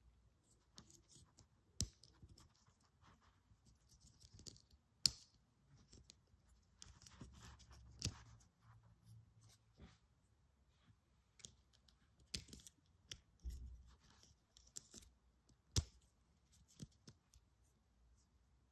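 Small plastic transforming toy figure being handled and folded: its parts click and scrape against each other, with several sharp clicks spread through and soft rubbing between.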